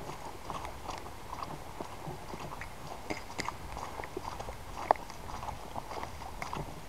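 Footsteps on wet grass with gear and a rifle clicking and rattling in irregular small knocks, and one sharper click about five seconds in.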